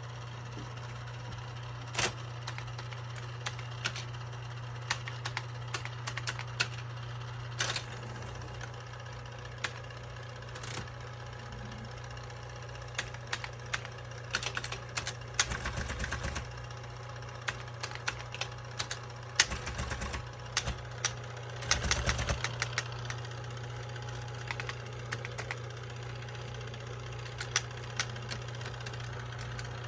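1968 Olivetti electric typewriter switched on, its motor humming steadily while keys are struck. Scattered single sharp clacks are joined by a few short clattering runs around the middle and shortly after.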